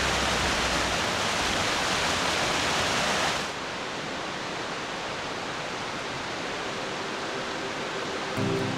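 A mountain stream rushing and splashing over rocks, loud and steady, then after about three and a half seconds a softer, duller rush of the same kind of water. Music fades out about a second in and starts again near the end.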